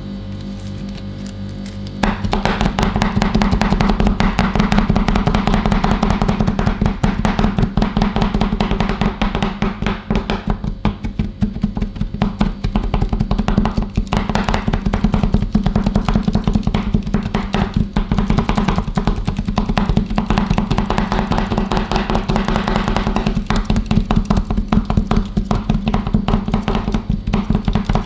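Metal spatulas chopping and tapping rapidly on the cold steel plate of a rolled-ice-cream pan, starting about two seconds in, over a steady low hum.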